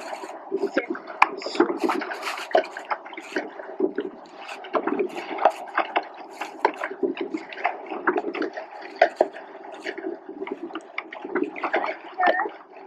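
Water splashing and lapping in an irregular run of small splashes and clicks, with no steady rhythm.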